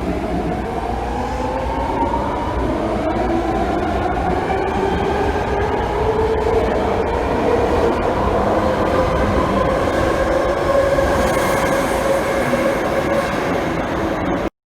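Loud, steady rumbling noise with several whining tones that rise slowly in pitch, cutting off abruptly near the end.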